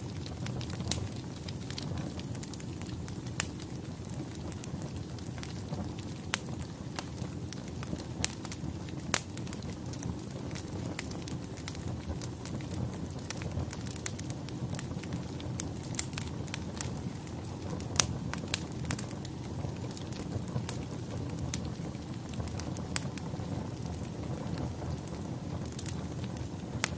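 Crackling fire ambience: a steady low rumble with irregular sharp pops and crackles scattered throughout.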